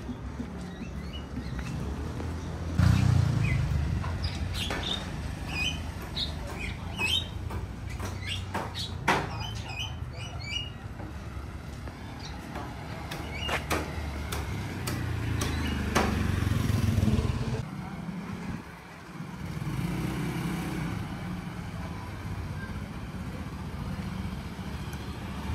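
Street ambience with motor scooter engines running and passing; the loudest swell comes about three seconds in, and another near sixteen seconds. Short bird chirps are heard between about four and eleven seconds in.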